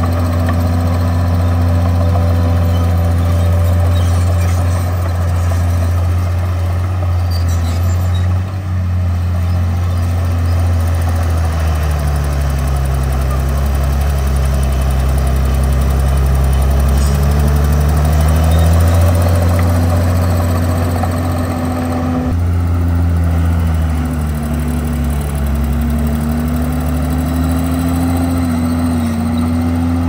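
Komatsu D51PX bulldozer's diesel engine running continuously, its pitch sagging and recovering twice, once around the middle and again later, as under load.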